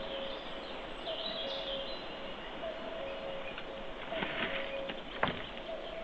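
Forest ambience with small birds chirping, short high calls clustered around the first two seconds, over a steady hiss. A few sharp cracks or snaps come about four and five seconds in, the loudest a little after five seconds. A faint low tone keeps breaking off and restarting at regular short intervals.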